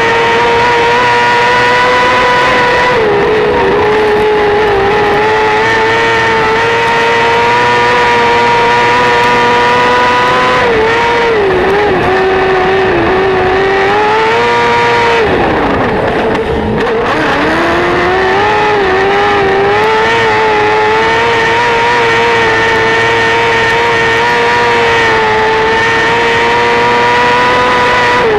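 Formula 500 dirt-track car's engine running hard at high, steady revs, heard from on board. The revs dip briefly several times, and about halfway through they drop away sharply and then climb back up.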